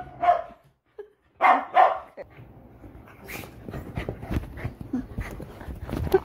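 Border collie barking in short, excited bursts, a couple near the start and two more about a second and a half in, with the audio dropping out briefly between them. After that come rapid scuffling and knocking as the dog lunges at the phone.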